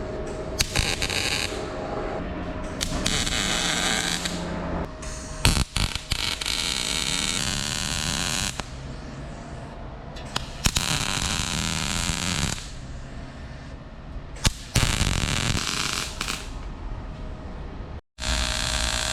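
Welder crackling and hissing along an exhaust pipe in a series of short runs, each lasting from under a second to about three seconds, with brief pauses between them.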